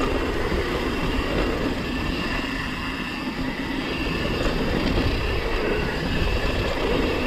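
YT Tues downhill mountain bike rolling fast down a packed-dirt trail: a steady rumble of tyres and rattling frame, picked up by a camera mounted on the handlebars.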